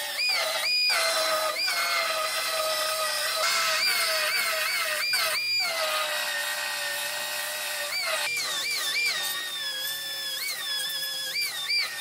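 High-speed pneumatic tool whining as it cuts the steel of a car's rear body panel, its pitch briefly jumping up again and again as it comes off the metal and sagging back as it bites in.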